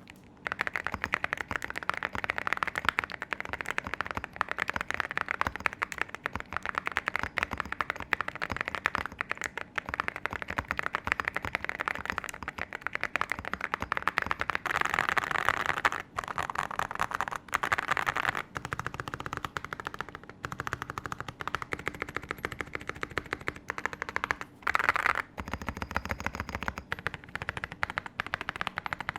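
Fast typing on a Zoom75 mechanical keyboard with alumina ceramic keycaps on lubed and filmed Moyu Studio Hera linear switches: a dense, continuous clatter of keystrokes with a deep tone, broken by a few brief pauses.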